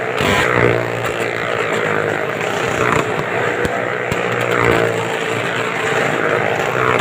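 Motorcycle engines running loud and steady as the riders circle the vertical wooden wall of a well-of-death pit, the pitch rising and falling a little with the throttle.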